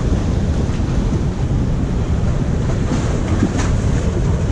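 Waves washing and splashing against the rocks of a jetty, with wind rumbling on the microphone.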